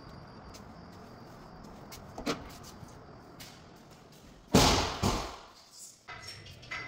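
A door slams shut with a loud thud about halfway through, with a second knock half a second later and a few lighter clicks after. A faint steady hiss and one small knock come before it.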